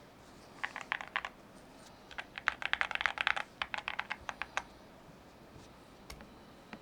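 Keys on a Cidoo V21 aluminium-case mechanical numpad being typed. A short burst of keystrokes comes about a second in, then a fast run of clicky keypresses for a couple of seconds, and a few single taps near the end.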